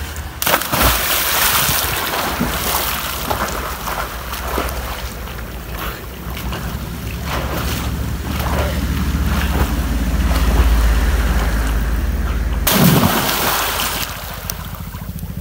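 Water splashing as a swimmer dives into a pond and swims away, with a continuous wash of moving water and a strong low rumble that cuts off about twelve and a half seconds in. Close churning, splashing water follows near the end.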